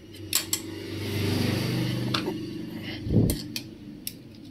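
Light metallic clicks and taps as the bolted cylinder head cover of a Hero Splendor Pro engine is twisted and eased off by hand, over a steady low engine-like hum from about half a second to two and a half seconds in. A short low thump about three seconds in.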